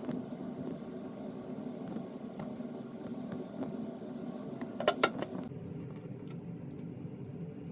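Steady mechanical hum with a few sharp metallic clicks, and a quick cluster of louder clicks about five seconds in.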